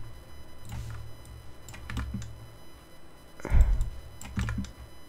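Computer keyboard keys and mouse buttons clicking now and then as shortcuts are pressed, with one heavier thump about three and a half seconds in.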